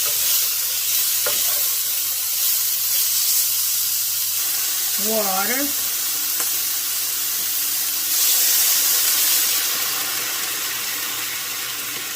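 Marinated pork chops sizzling as they fry in hot olive oil in a pan, a steady hiss. About eight seconds in the sizzle swells louder as water goes into the hot pan, then eases off.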